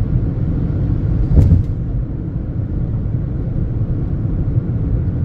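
Steady low rumble of a car's road and engine noise heard from inside the moving car, with one short knock about a second and a half in.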